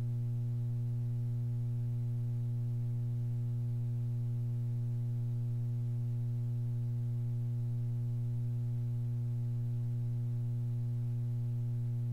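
Steady electrical mains hum with a buzz of overtones, unchanging throughout and with no crowd or other live sound under it.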